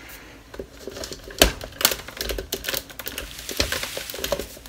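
Plastic clicks and knocks of a NutriBullet blender cup being pushed down and twisted on its motor base, in irregular taps with one louder knock about a second and a half in; the motor does not start.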